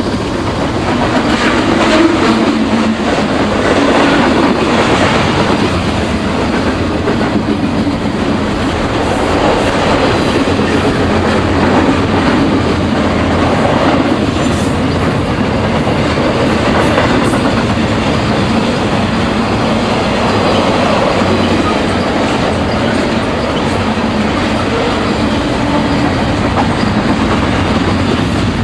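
Double-stack intermodal container train rolling past at close range: a steady loud rumble of steel wheels on the rails, with clickety-clack as the wheels pass over rail joints.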